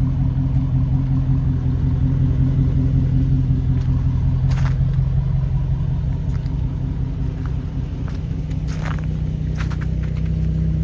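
Car engine running steadily at a low, even pitch, with a couple of faint clicks.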